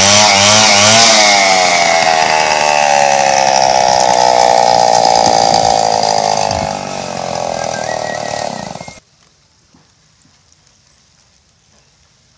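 Small petrol engine of a saw ripping a log lengthwise, its pitch wavering under load at first, then falling steadily as it slows. It shuts off abruptly about nine seconds in.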